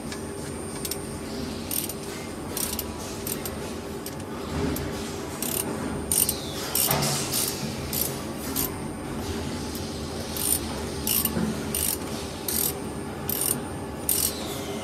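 Irregular metallic clicks and ratcheting from a T-handle wrench turning the adjusting bolts beside the wire-straightening rollers of a camless spring forming machine, over a steady low hum.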